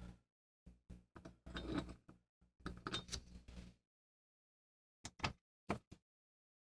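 Small metal screw being set into the locking ring of a Civil War era socket bayonet, with light metal clicks and scrapes of tweezers and parts. After a pause, a screwdriver blade scrapes in the screw slot in three short turns about five seconds in.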